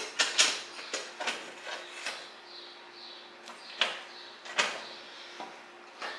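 Irregular metallic clicks and knocks, about eight in all, as turbo and exhaust manifold parts are handled and test-fitted, over a faint steady hum.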